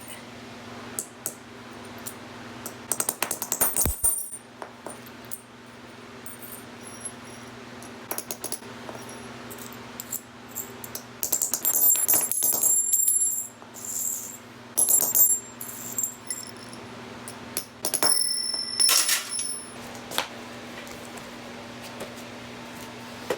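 Hammer strikes on broken steel spade drill bits to pound their twisted blades flat: sharp metallic clinks in irregular clusters, several leaving a high ringing note, over a steady low hum.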